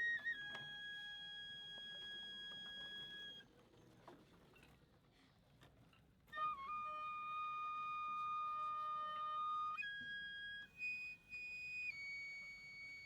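Shinobue (Japanese bamboo transverse flute) playing a slow solo of long held high notes, stepping from pitch to pitch, with a pause of about three seconds in the middle.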